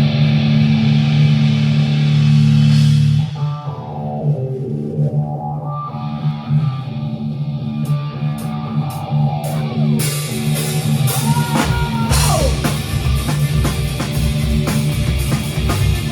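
Live rock band playing an instrumental passage with electric guitars and a drum kit. A loud held chord cuts off about three seconds in, then quieter guitar with sliding notes and a few cymbal ticks, and the full band with drums comes back in hard about ten seconds in.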